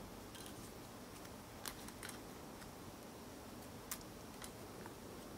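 Small plastic Xiaomi MiTu quadcopter propellers clicking faintly against one another as they are handled and sorted, with two sharper ticks about two seconds apart.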